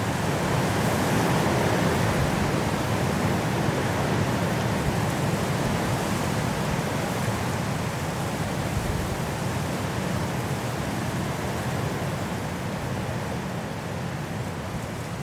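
High wind blowing through trees in a mountain snowstorm, a steady rushing that swells in a gust about a second or two in and eases slightly toward the end.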